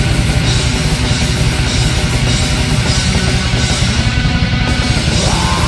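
Loud heavy metal music: distorted guitars over dense, continuous drumming.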